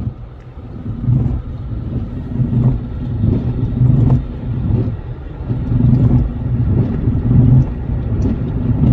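Car windshield wiper rubber chattering across the glass, a juddering rumble that swells with each sweep up and down, about every second and a half. It is the sound of the blade dragging and skipping over a windshield that has a water-repellent coating, so there is no film of water under the rubber.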